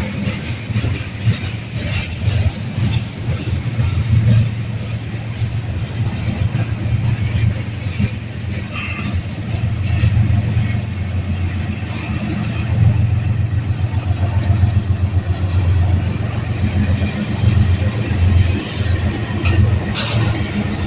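Union Pacific freight train passing with a steady low rumble of wheels on rail. A couple of sharp clanks come near the end.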